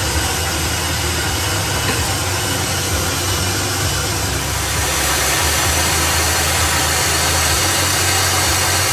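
Steady, loud whirring of a kitchen appliance motor with a low hum. About halfway through it gets a little louder and smoother, as a food processor runs, mixing flour for pie-crust dough.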